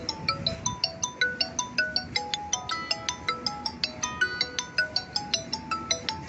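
Background music: a quick ringtone-like melody of short, sharply struck notes, about five a second, which cuts off suddenly at the end.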